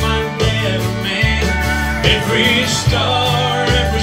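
Country music: an acoustic guitar played over a steady bass line, with a melody line carried above it.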